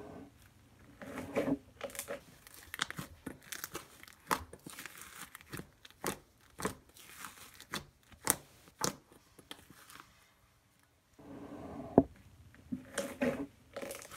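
Hands stretching, squishing and folding a fluffy turquoise shaving-cream slime in a metal bowl, giving a run of sticky clicks and crackles as the slime pulls apart and presses together, with a short lull about ten seconds in.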